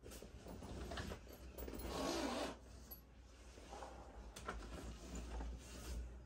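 Faint zipping and rustling of a black fabric travel bag being handled and packed, in several short scraping strokes, the longest about two seconds in.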